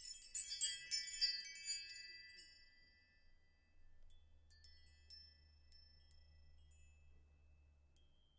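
Sparkling, glockenspiel-like chime sound effect: a quick cluster of high, bright tinkling notes over the first two seconds, then a few faint single tinkles around the middle.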